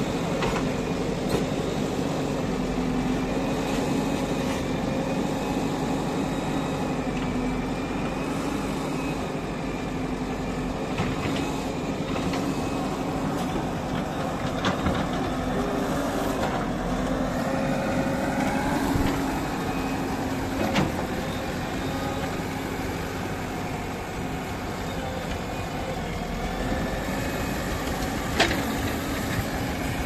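JCB 3DX backhoe loader's diesel engine running steadily while its backhoe digs a trench, with a few sharp clanks from the working arm and bucket.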